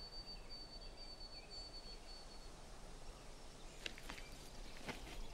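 Faint background ambience with a thin, steady high whistle held for about two and a half seconds, then a few soft clicks from about four seconds in.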